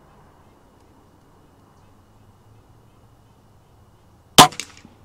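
Beeman R7 spring-piston air rifle firing a single shot about four seconds in: one sharp, short report, followed by a couple of faint clicks.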